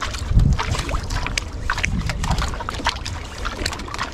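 Wind on the microphone and water sloshing around a small boat at sea, a steady low rumble with scattered light knocks and clicks.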